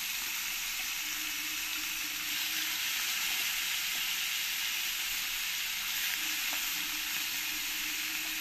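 Pieces of snakehead fish frying in hot oil in a pan, giving a steady, even sizzle.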